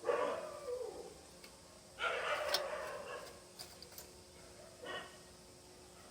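An animal calling three times: a longer, falling call at the start, another about two seconds in, and a short one near five seconds, with a few faint clicks in between.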